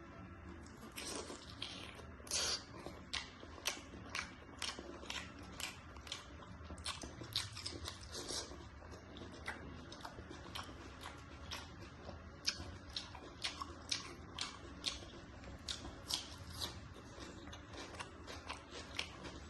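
A person chewing and eating, with a continuous run of short mouth clicks, two to three a second.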